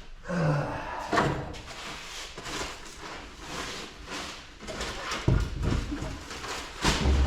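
Irregular knocks, clatter and scraping as a scrapped compressor's steel shell is handled and moved, with heavy thuds about five seconds in and again near the end.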